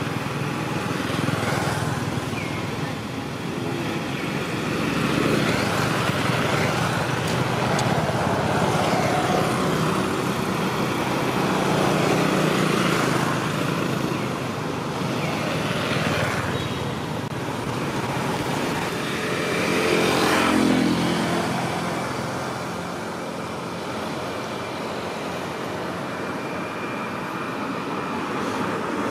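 Road traffic: motor vehicles running and passing, a steady rumble that swells and fades, loudest as one passes about twenty seconds in.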